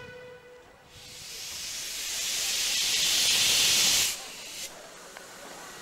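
Steam locomotive venting steam: a loud hiss that builds over about three seconds and cuts off suddenly about four seconds in. At the start, the last of a whistle note dies away.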